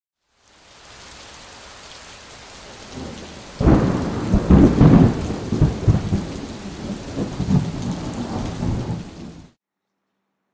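Thunderstorm: steady rain hiss, then a loud thunderclap about three and a half seconds in that rumbles in uneven surges and fades out shortly before the end.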